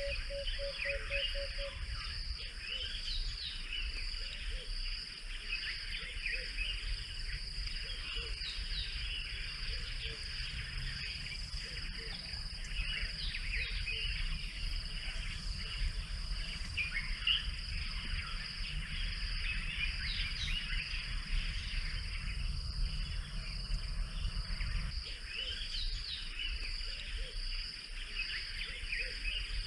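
Bush ambience: a steady, high insect drone like cicadas or crickets, with many short bird chirps and calls over it, and a brief run of evenly repeated lower notes in the first two seconds. A low rumble sits underneath and drops away near the end.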